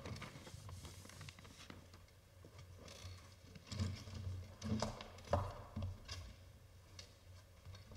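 A few soft knocks and rustles over a low steady hum, the loudest cluster a little past the middle; no music has started yet.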